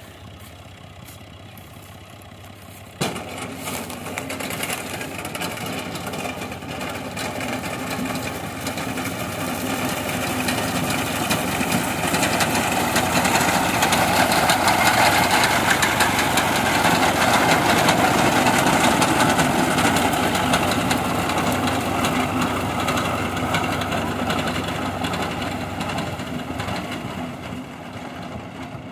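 Fiat Ghazi 65 hp tractor engine running under load while its front-mounted reaper cuts standing wheat. The sound comes in abruptly about three seconds in, grows louder to a peak as the tractor passes close, then fades as it moves away.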